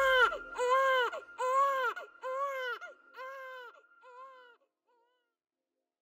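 Newborn baby crying in a run of short wails, each rising and falling, a little more than one a second. The wails grow fainter and die away after about four and a half seconds.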